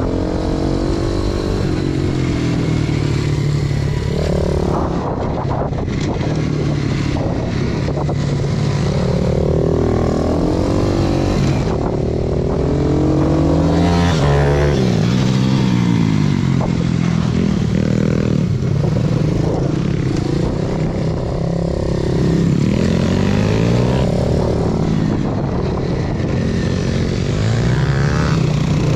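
Pit bike's 125 cc four-stroke single-cylinder engine heard on board, revving up and dropping back again and again as the rider opens and closes the throttle through a run of corners.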